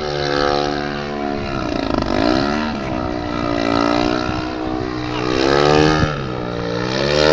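Large-scale aerobatic RC plane's engine and propeller running in flight, the pitch rising and falling every second or two as the throttle is worked through 3D manoeuvres. It swells loudest near the end.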